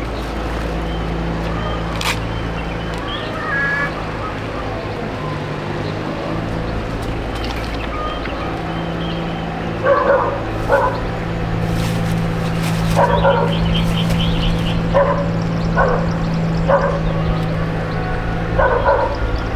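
A dog barking in short yips, once around the middle and several more times through the second half, over a steady low hum.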